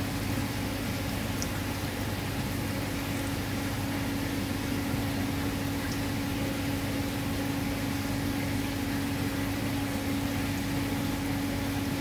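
Steady hum of a pump motor with one constant low tone, over an even hiss of bubbling, aerated water.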